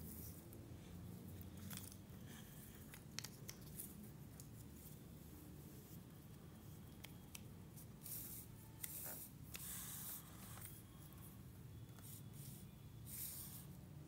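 Cardboard jigsaw puzzle pieces being handled: faint scraping, rustling and small clicks as pieces are slid across the floor and pressed into place, at irregular moments over a low room hum.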